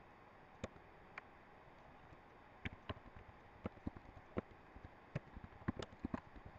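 Computer keyboard keys clicking as text is typed: a couple of single keystrokes in the first second or so, then an uneven run of quick keystrokes from about two and a half seconds in, over a steady faint hiss.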